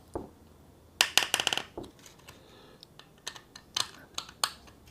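Small screw being turned into a stiff, self-threaded hard plastic part of an RC buggy kit. It gives a quick run of sharp clicks about a second in and a few lighter ticks later, the screw biting tight in a hole that the builder feels was not tapped deep enough.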